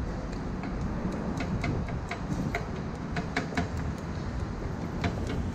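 Metal takoyaki picks clicking and tapping against a takoyaki pan as the balls are turned: a quick run of sharp ticks in the middle and a couple more near the end, over a steady low rumble.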